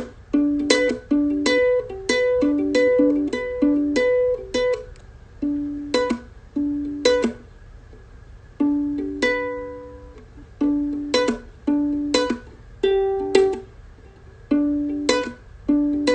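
Ukulele strummed in short chords, played haltingly in short runs with several pauses of about a second, as the player works out a song's chords by trial.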